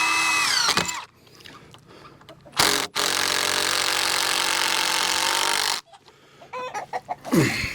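A power tool runs steadily for about three seconds, cutting off suddenly. Chickens call at the start and near the end.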